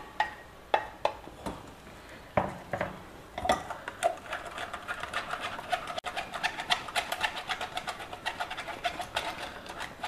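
A wooden spatula knocking and scraping thick date-and-tamarind paste out of a steel blender jar, several separate knocks, then from about three and a half seconds rapid, continuous scraping as it works the paste through a stainless steel mesh sieve.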